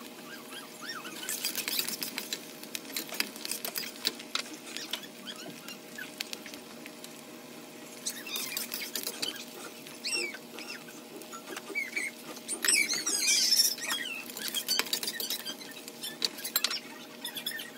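Chopped onions, green chillies and vegetables frying in hot oil in a steel karahi: a crackling sizzle with bursts of spitting pops, the loudest about three quarters of the way through.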